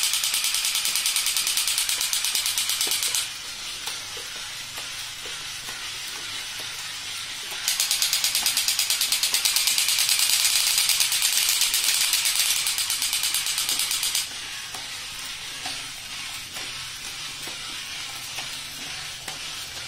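Battery-operated crawling Batman and Spider-Man soldier toys running: a harsh, fast-rattling toy machine-gun sound effect from their small speakers, loud at the start and again for about six seconds in the middle, with the quieter whirring and clicking of their crawling gear mechanisms in between.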